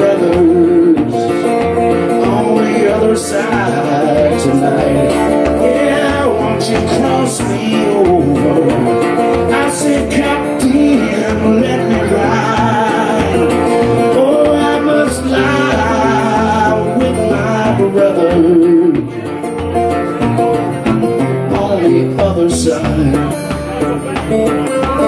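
Solo blues played on a hollow-body archtop guitar: an instrumental break, picked over a steady repeating bass pulse.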